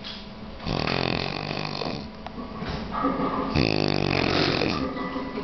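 A person snoring loudly: long rasping snores in a steady rhythm, two big ones about three seconds apart.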